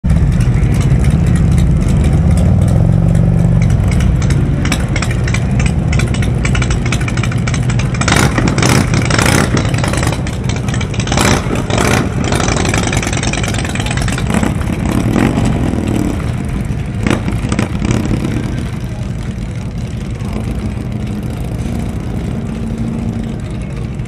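Harley-Davidson V-twin motorcycle engines rumbling at idle and revving, with rises and falls in pitch. The rumble eases off after about 18 seconds.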